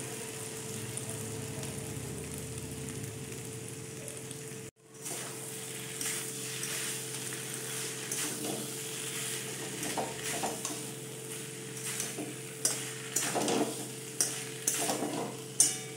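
Mixed vegetables sizzling as they fry in oil and spice paste in a metal wok, stirred with a spatula that scrapes against the pan, the scrapes coming more often in the last few seconds. The sound drops out for an instant about five seconds in.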